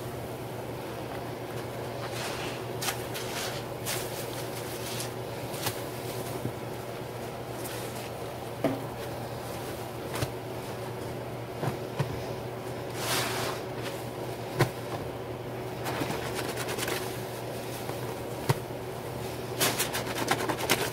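Kitchen towels being hand-washed in a sink of soapy water by rubber-gloved hands: irregular swishing, rubbing and splashing, over a steady low hum.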